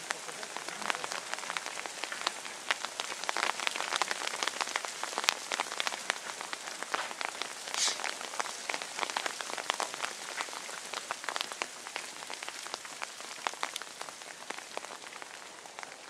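Steady rain, with many short, sharp drop hits over a continuous hiss.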